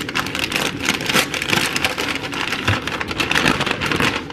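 Brown wrapping paper crinkling and rustling as a package is unfolded by hand, in a dense, irregular crackle.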